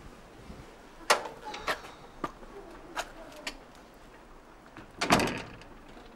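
Blue sheet-metal yard gate: a few light clicks and knocks, then the gate bangs shut about five seconds in.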